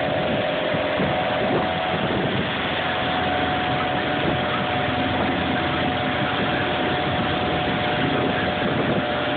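Fishing boat's engine running steadily under way, a constant drone mixed with the rush of wind and choppy water.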